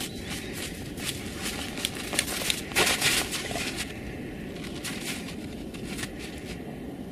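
Dogs digging in snow: a run of quick paw scrapes and snow crunches, with a louder rush of scraping about three seconds in.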